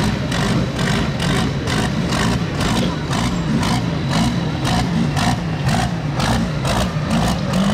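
Big International Harvester tractor's diesel engine working hard under load on a pull, with an even pulsing of about four to five beats a second.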